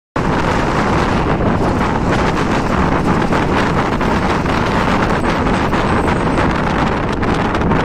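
Wind rushing and buffeting on the microphone held at the window of a bus moving at speed, over the steady low rumble of the bus running along the road.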